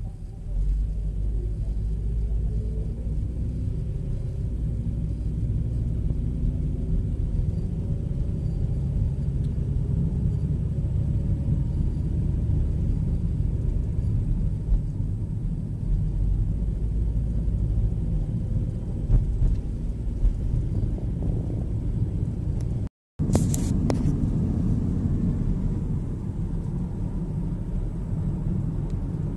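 Low, steady rumble of tyre and engine noise heard inside a moving car's cabin. The sound cuts out for a split second about three-quarters of the way through.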